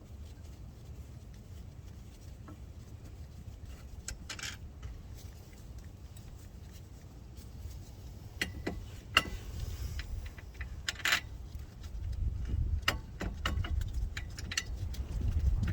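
Small metal tools and brake parts clinking and clicking during reassembly work: scattered sharp clicks, coming more often from about halfway through, over a steady low rumble.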